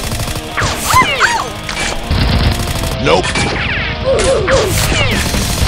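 Background music mixed with comic sound effects: crashing hits and quick sliding tones, along with voices.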